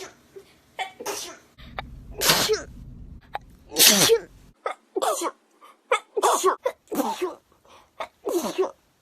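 A young woman sneezing uncontrollably, a rapid run of sneezes about one every second.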